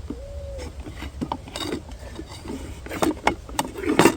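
Light scraping and tapping of a spoon on a plate while food is dished up, with a few sharp clicks about three seconds in and near the end.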